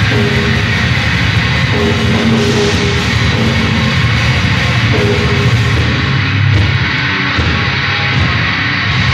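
Heavy metal band playing live on stage: distorted guitars and drums, loud and dense.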